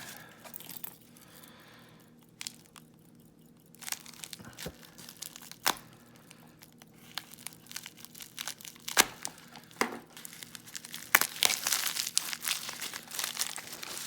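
Packaging being handled and unwrapped by hand: scattered crinkles, taps and sharp snaps, with denser, louder crinkling and tearing near the end.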